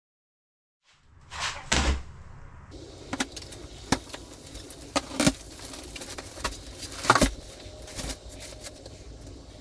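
Insulation batts being pulled from their plastic-wrapped bale and handled, starting about a second in: plastic wrapping rustling and scraping, with scattered knocks and clicks.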